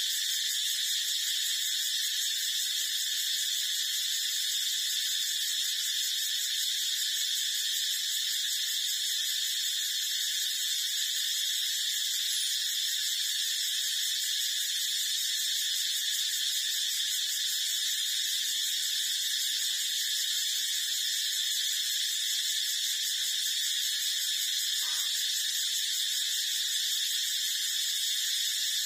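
A steady, high-pitched hiss that never changes, with no distinct sounds from the nursing puppies.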